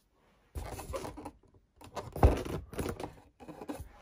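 Handling noise: irregular rubbing and scraping against the foam airframe of a model airplane, starting about half a second in, with one louder knock a little over two seconds in.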